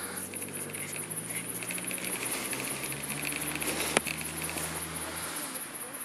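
Night-time crickets chirping: a steady, fast-pulsing high trill with a second pulsing chirp in the first few seconds. Under them a low steady hum stops a little after five seconds in, and a single sharp click sounds about four seconds in.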